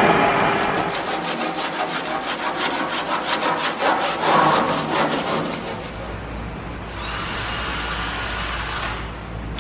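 Quick, rhythmic rubbing strokes of a hand tool worked against the epoxied plywood inside the hull. About six seconds in they give way to a cordless drill whirring for about two seconds as it runs into a wooden strip laid on plywood.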